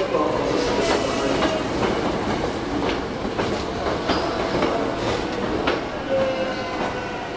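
Hankyu commuter train on the rails at a station platform, its wheels clattering with scattered clicks and a faint squeal that comes and goes.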